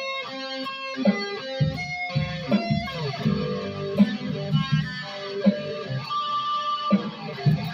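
B.C.Rich M-Bird electric guitar played through an amp, picking a melodic riff of single notes with a few slides between them.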